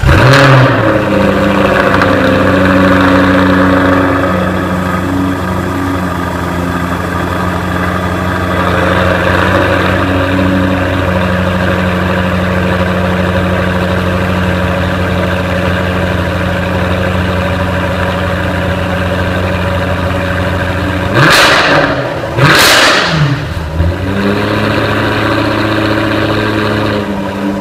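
Exhaust of a 2015 Jaguar F-Type R Coupe's 5-litre supercharged V8, heard from the quad tailpipes. It fires up with a loud flare into a fast idle that steps down and settles, gets two quick blips of the throttle a little past twenty seconds in, and drops back to a steady idle.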